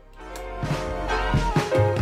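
Background outro music with a beat, coming in just after the start.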